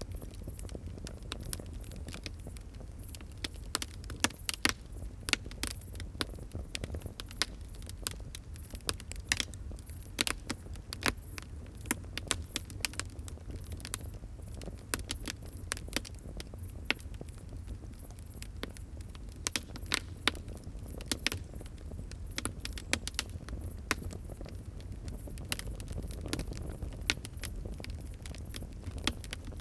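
A fire crackling: irregular sharp pops and snaps, some much louder than others, over a steady low rumble of the flames.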